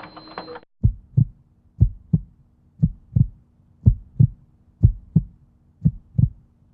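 Heartbeat sound effect: slow, regular double thumps, about one lub-dub a second, over a faint steady low hum. It starts abruptly under a second in, as the room sound cuts off.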